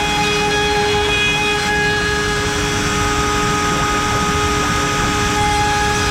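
CNC router spindle at 24,000 rpm with an 8 mm cutter milling wood: a steady whine of several tones over dense cutting noise, the tone changing about halfway through.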